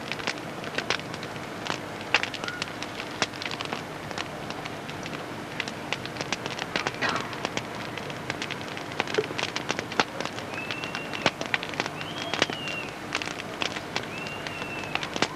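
Campfire crackling with irregular sharp pops over a steady hiss. Short bird chirps come in during the second half.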